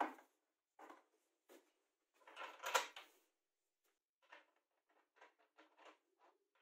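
Quiet handling of bolt hardware on a wooden frame: a knock, a cluster of clicks and clinks a couple of seconds in, then a run of small quick ticks as a metal washer and nut are turned onto a bolt by hand.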